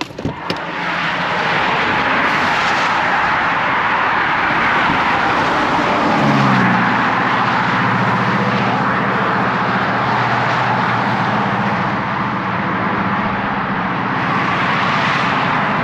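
Fast interstate traffic rushing past close by: a loud, steady roar of tyres and engines that comes up suddenly after a couple of clicks at the start. About six seconds in, an engine drone drops in pitch and then holds.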